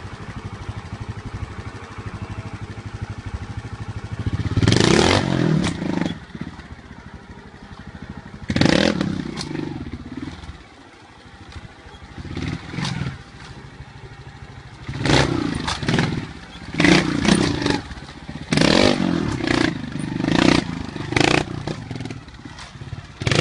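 Trials motorcycle engine idling, then revved in about seven short, sharp blips as the bike hops and climbs over large rocks, with some clatter of the bike against the rock.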